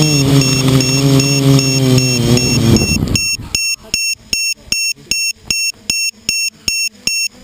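Quadcopter motors and propellers whining with a wavering pitch, then spooling down about three seconds in as the quad lands. After that an electronic beeper sounds short high beeps at a steady rate of about three a second.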